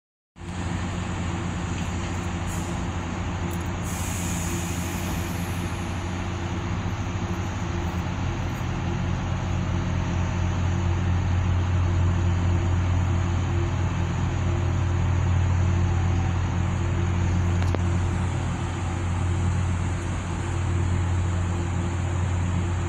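Steady low hum from trains standing at a railway platform: a continuous drone with a few steady low tones, growing a little louder partway through.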